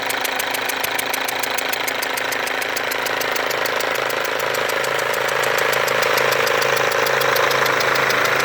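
Mercedes W204 diesel engine idling with a loud, rapid, even ticking and a hissing whistle from a leaking injector, the sign of a failed injector seal letting combustion gas escape. The hiss swells about halfway through.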